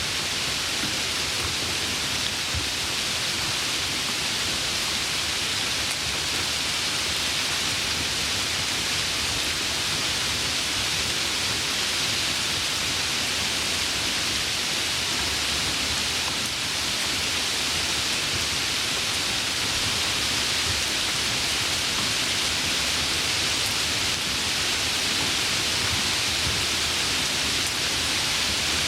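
Heavy rain falling steadily, a dense even hiss with no distinct drops or thunder.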